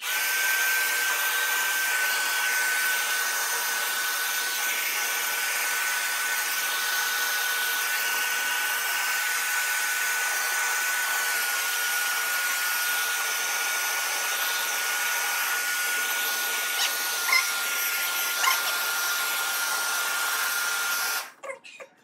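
Handheld hair dryer blowing steadily on a wet dog's coat: an even rush of air with a constant high motor whine that drops slightly in pitch a few times. It cuts off near the end.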